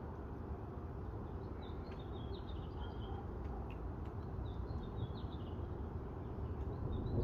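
A songbird singing short phrases of quick descending chirps, repeated every couple of seconds, over a steady low rumbling noise from the storm. The rumble begins to swell near the end.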